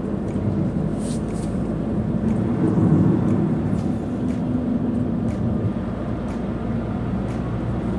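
Car driving along at steady speed: a continuous low drone of engine and tyre noise, with faint light ticks about once a second.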